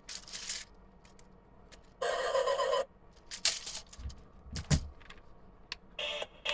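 Scattered plastic clicks and knocks from handling a toy RC stunt car and its remote as they are switched on, with a short burst of noise about two seconds in and a few low thumps later. Near the end the car's built-in electronic music starts playing.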